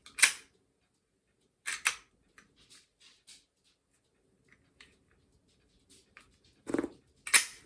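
Ruger Security 9 pistol being handled, its slide worked with effort: a few sharp metallic clacks, the loudest just after the start and near the end, with faint small clicks of handling between.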